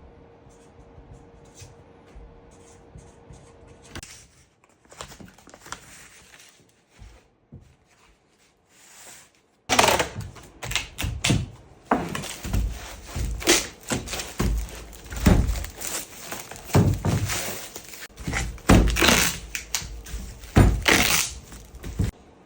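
Workshop knocking: irregular thunks and knocks, as of wooden pieces being struck or handled. They are faint and sparse at first, then loud and rapid from about ten seconds in.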